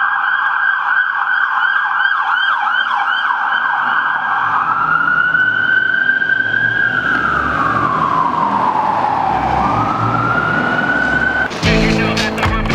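Emergency vehicle siren, first a fast yelp and then a slow rising and falling wail, over a low traffic rumble. About a second before the end it cuts to music with sharp skateboard clacks.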